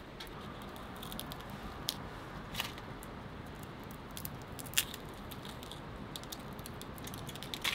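Roasted chestnut shells being cracked and peeled by hand: scattered crisp crackles and snaps, a few of them louder, over a steady soft hiss.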